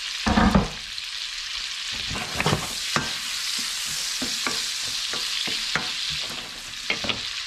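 Diced chorizo, onion and peppers sizzling steadily in oil and butter in a frying pan, while a wooden spatula stirs them and taps against the pan. A louder knock comes about half a second in.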